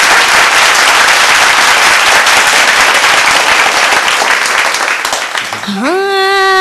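Studio audience applauding, fading out about five seconds in. Near the end a single sustained musical note slides up and holds.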